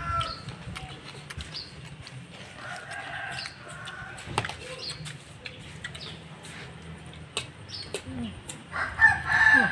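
A rooster crowing near the end, the loudest sound, over short high chirps repeating every second or so. Spoons clink now and then against china plates.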